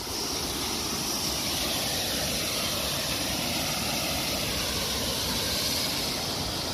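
Steady rushing of running water in a stream gully.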